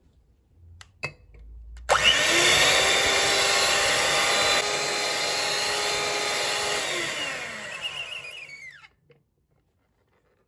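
Electric hand mixer whisking double cream toward soft peaks: a click about a second in, then the motor starts abruptly and runs with a steady whine, winding down with a falling pitch before it stops near the end.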